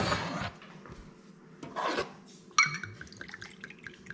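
Kitchen clatter while mixing a drink: a short rush of noise at the start and another about two seconds in, then a sharp clink with a brief ring, followed by light taps and clicks.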